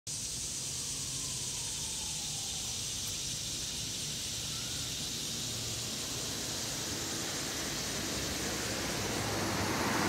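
Chorus of annual cicadas giving a steady, high-pitched buzzing drone. A car approaches, growing louder over the last two seconds.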